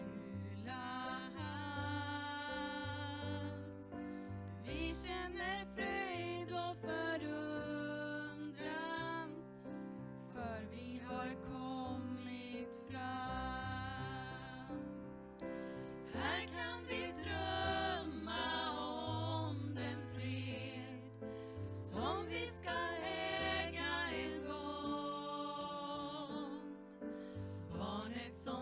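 Four women singing a Christmas song together in harmony into microphones, over keyboard accompaniment holding low notes under the sung phrases.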